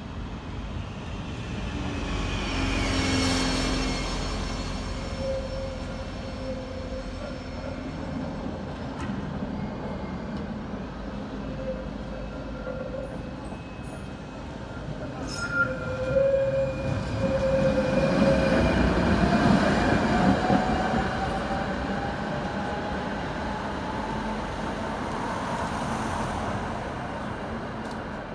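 A city tram passing on curved street track, its wheels rumbling and squealing thinly on the rails. Its loudest pass comes a little after the middle, and from there a motor whine rises steadily in pitch.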